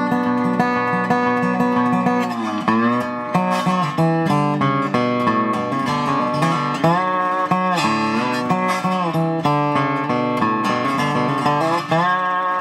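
RQ Jones spider-bridge resonator guitar (dobro) played lap-style with fingerpicks and a slide bar: a continuous run of picked notes and chords, with several slides up and down in pitch.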